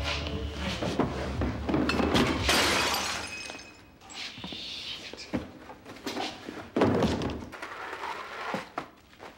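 A loud crash of something breaking about two seconds in, over music that fades out, followed by a few separate thuds and knocks.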